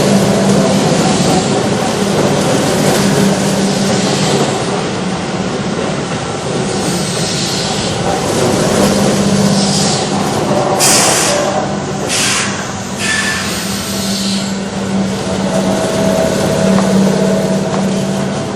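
Keihan Electric Railway train running past at the level crossing, a loud continuous rumble and rolling noise. Two short hisses come about 11 and 12 seconds in.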